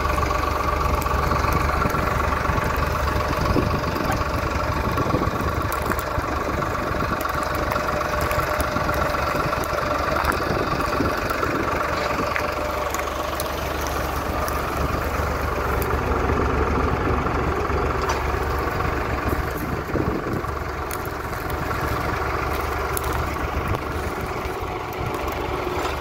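Tractor diesel engine running steadily.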